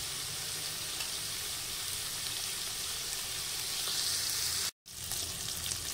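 Slices of smoked linguiça sausage sizzling steadily as they fry in a hot pot. The sizzle cuts out for a split second near the end, then carries on.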